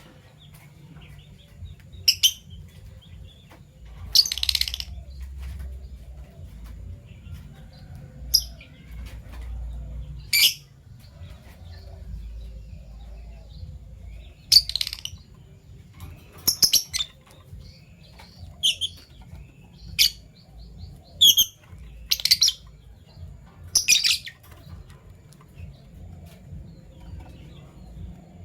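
Fischer's lovebirds giving short, sharp, high-pitched chirps, about a dozen spaced irregularly, with one slightly longer call about four seconds in, over a low steady hum.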